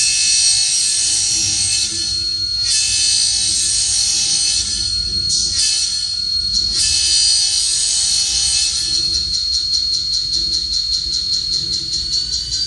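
A model train sound decoder plays diesel locomotive sounds through the N scale EMD GP30's tiny onboard speaker. A horn sounds in a series of blasts with short breaks over the running engine and a steady high whine. After about nine seconds the horn stops, leaving fast, even ticking and a whine that rises near the end.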